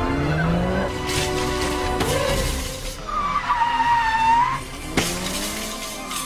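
MINI Cooper's tyres squealing as the car swerves hard, one wavering squeal about three seconds in that lasts a second and a half, over music. A sharp knock follows about five seconds in.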